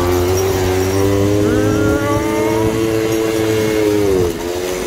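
Small moped engine running as the moped rides along, its pitch rising about a second and a half in and falling away just before the end as the throttle is eased.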